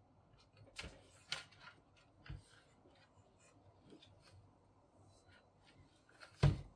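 Scattered clicks and light knocks of the paper laminator's plastic casing and parts being handled during disassembly, with one louder knock about six and a half seconds in.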